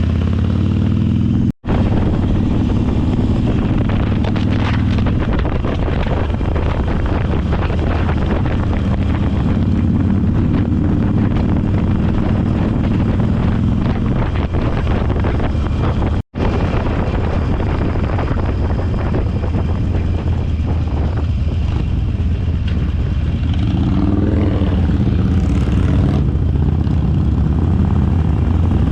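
Motorcycle engine running steadily at cruising speed, with wind rushing over the microphone. The sound drops out for a split second twice, and the engine note climbs a little near the end.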